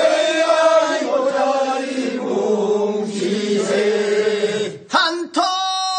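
Male voices singing the Korean rice-seedling pulling work song (mojjineun sori) unaccompanied, in long drawn-out held notes that bend slightly. Near the end the singing breaks off briefly and a single clear voice takes up a new line.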